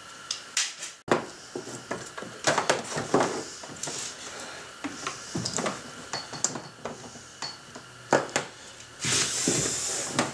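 Scattered clicks, knocks and rustling of hands handling wires and plastic fittings inside a kayak hull, with a longer scraping rustle near the end as a wire is worked through.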